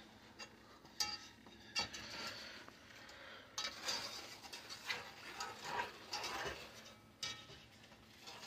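Wire whisk stirring sugar, butter and milk in a saucepan, scraping and clinking against the sides of the pan in uneven strokes, with a few sharper clinks.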